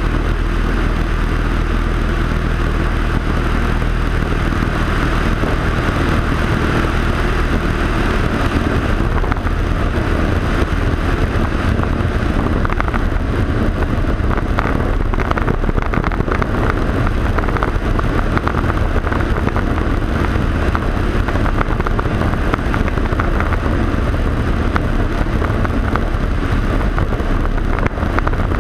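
Single piston engine of a Cessna jump plane running steadily in flight, with heavy wind rush on the tail-mounted camera; the wind grows rougher and more buffeting about a third of the way through.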